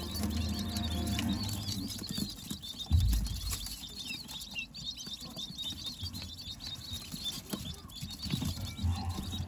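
Quail chicks pecking at crumbled feed in a plastic feeder tray: a busy patter of small taps, with thin high peeps over it. A single dull thump about three seconds in.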